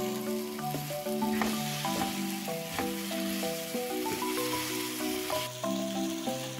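Quail sizzling as they fry in a spicy masala in a non-stick pan, with a spatula scraping now and then as the pieces are turned. A gentle music melody plays throughout.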